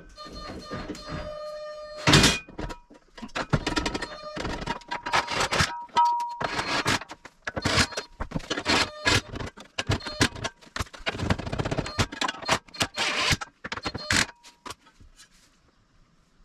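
Irregular metallic clanks, knocks and scrapes, some ringing briefly, as a steel tow hitch is handled and hung in place under the car. The clatter stops near the end.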